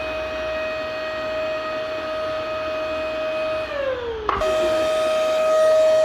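Vacuum cleaner motor running with a steady whine over rushing air. About three and a half seconds in, its pitch falls as the motor winds down. Then, after a click, it cuts straight back to full speed.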